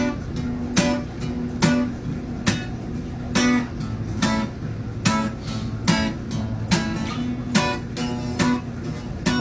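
Background music: an acoustic guitar strumming chords at a steady, even beat.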